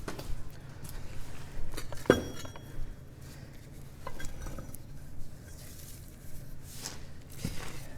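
Scattered metal clinks and knocks of parts and tools being handled while a track idler is fitted into a compact track loader's undercarriage. The sharpest knock comes about two seconds in and rings briefly, over a faint low hum.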